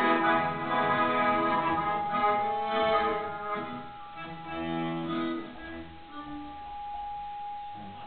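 Accordion playing sustained chords with other instruments. After about four seconds the music thins out, leaving one held note that fades away.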